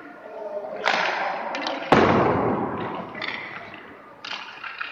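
Hockey skates scraping on ice in bursts, and, about two seconds in, one loud sharp crack of a shot puck that echoes through the rink.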